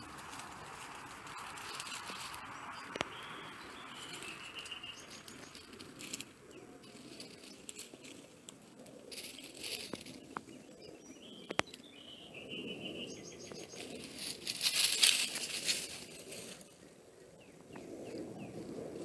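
Nine-banded armadillos rooting and shuffling through dry leaf litter: steady rustling and scratching with scattered sharp clicks, loudest in a burst about fifteen seconds in. A bird trills briefly in the background twice.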